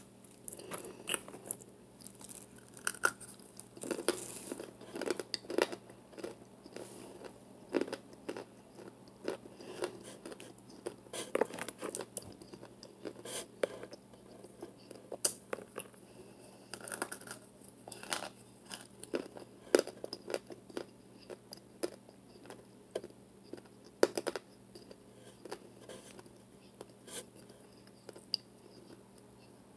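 Close-up biting and chewing of hard, chalky chunks of an arrowroot starch mixture, with irregular crisp crunches.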